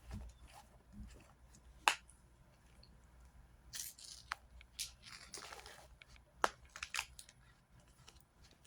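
A slime container being opened by hand: scattered sharp clicks and a few short crinkly rustles and tears of packaging.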